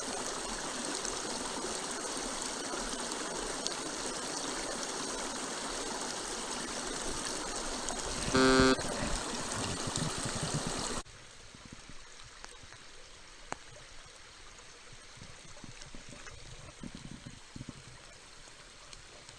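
Small mountain stream flowing with a steady rush of water. About eight seconds in, a short, loud horn-like tone sounds once; a few seconds later the water sound cuts off abruptly, leaving a much quieter background with faint knocks.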